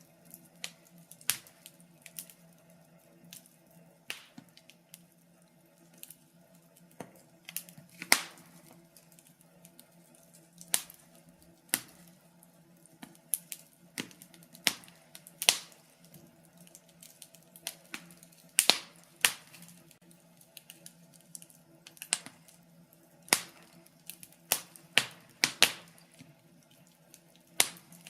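Wood fire crackling in a fireplace: sharp, irregular pops and snaps, one or two a second, some much louder than others.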